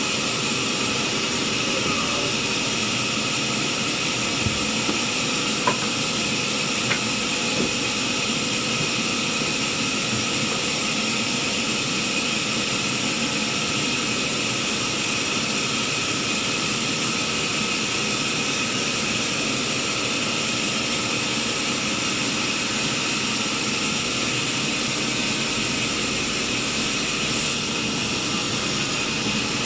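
Sawmill saw running steadily with a constant whine and hiss, with a few faint knocks between about four and eight seconds in.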